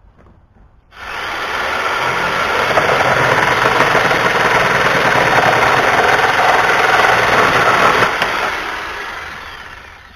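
Cordless 6-inch battery chainsaw running and cutting through scrap wood, starting abruptly about a second in, then winding down near the end.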